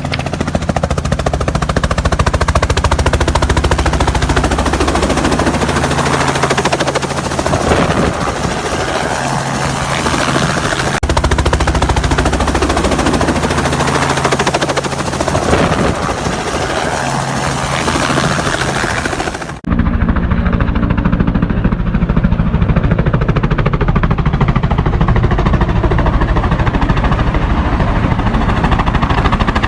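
Typhoon wind buffeting the microphone in a loud, rumbling rush with rapid rattling pulses. About two-thirds of the way through the sound cuts abruptly to a duller-sounding stretch of the same.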